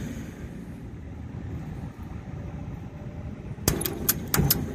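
Trane unit's blower running with a steady low rumble, started by a test-mode call for the fan. Near the end comes a quick run of sharp clicks.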